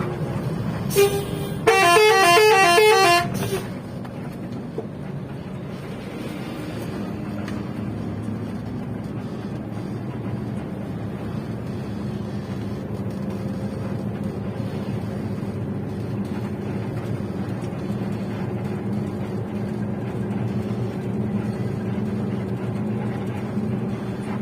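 A short toot, then a bus's multi-tone telolet horn plays a quick warbling run of alternating notes for about a second and a half. After it a steady low engine rumble carries on.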